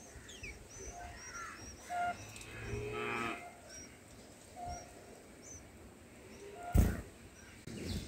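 Small birds give short high chirps again and again. About two and a half seconds in, a lower, drawn-out animal call rises and falls for about a second, and a sharp knock sounds near the end.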